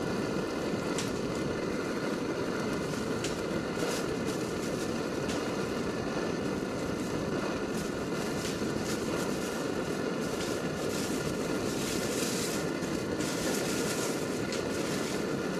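Portable gas camping stove burner running steadily under a kettle, an even roar at a constant level. Scattered small clicks of items being handled over it.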